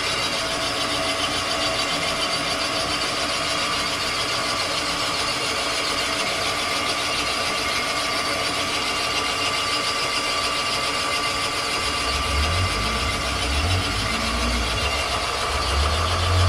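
Cylinder boring bar running steadily as it cuts a cylinder of a Chevy small-block V8 block, a constant machine hum with several steady tones over a noisy hiss. A low rumble joins about twelve seconds in.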